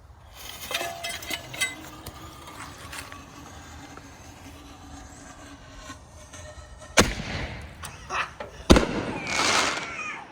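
A firework mortar shell fired from an old cast cannon barrel used as the mortar tube. A hissing crackle in the first few seconds is followed by two sharp bangs about a second and a half apart, the launch and then the shell bursting, and a loud hissing crackle after the second bang.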